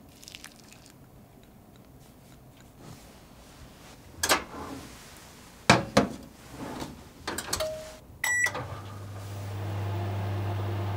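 Iris Ohyama microwave oven: the door is opened and a glass bowl is set inside with a few knocks and clatters, the door is shut, two button beeps sound, and the oven starts running with a steady low hum.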